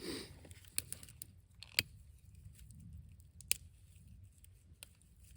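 Kindling of a freshly lit small fire crackling as it starts to catch: scattered sharp pops and snaps, the loudest a little before two seconds in, over a faint low rumble.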